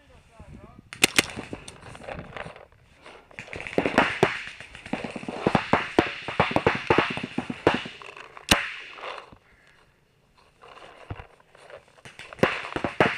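Paintball markers firing in rapid strings of sharp pops, the nearest a Planet Eclipse Ego LV1 electropneumatic marker, with a short lull about nine seconds in before the firing picks up again.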